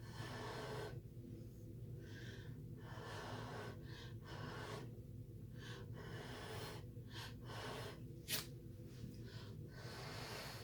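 Handheld butane torch hissing in uneven on-and-off stretches as it is passed over wet acrylic pour paint to pop air bubbles. There is one sharp click about eight seconds in, over a steady low hum.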